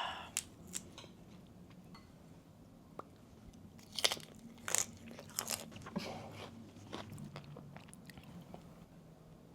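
Close-up crunching and chewing of Thai crispy rice salad, the fried crispy rice cracking between the teeth in a scatter of sharp crunches, loudest about four to five seconds in.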